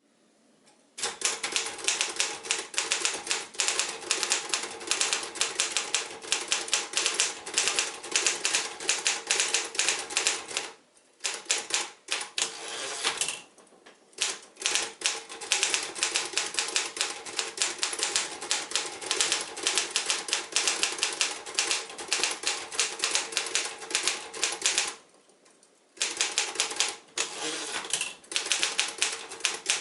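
1947 Royal KMM manual office typewriter being typed on fast: a dense run of keystrokes, with short breaks about eleven, thirteen and twenty-five seconds in.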